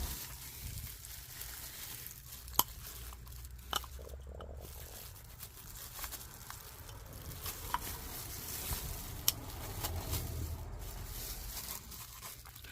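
Faint handling noises of small oil-filter parts being worked by hand, with a few sharp clicks and taps scattered through.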